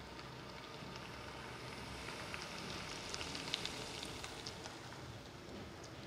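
Quiet room tone: a steady hiss with a run of light, scattered clicks and crackles through the middle.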